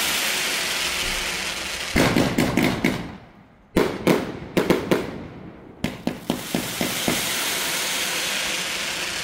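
Fireworks going off: a steady hiss of spraying sparks, broken about two seconds in by a run of sharp cracks and pops. One loud bang comes just before the middle, then the hiss again.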